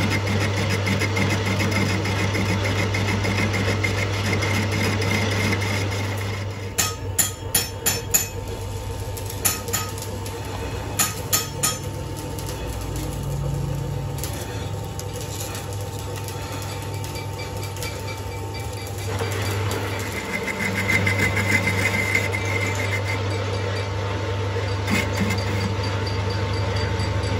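Metal lathe turning a cast disc-harrow hub: a steady motor hum with the tool cutting the metal. About six seconds in the cutting stops and several sharp metallic clicks and clinks follow while the part is measured with a caliper; around nineteen seconds the lathe is running and cutting again.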